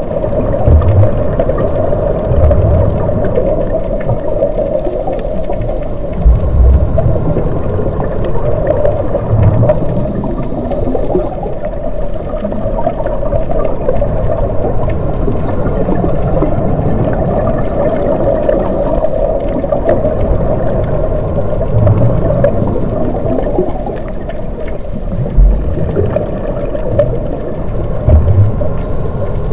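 Underwater ambience: a steady hum with low gurgling rumbles swelling every few seconds.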